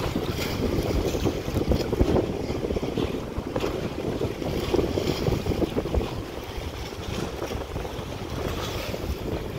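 Wind buffeting the microphone in gusts, a low rumble, over small sea waves sloshing against the rocks.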